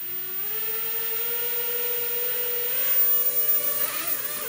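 Small JJ1000 toy quadcopter's electric motors and propellers spinning up to a steady whine. About three seconds in, the pitch splits into several tones that rise and fall separately as the motors change speed, then the sound cuts off suddenly.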